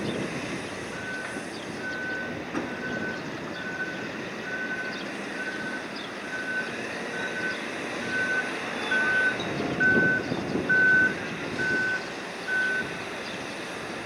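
A backup-style warning alarm beeping, a run of short single-pitch beeps at a little over one a second that stops near the end, over a steady machinery rumble that swells in the middle.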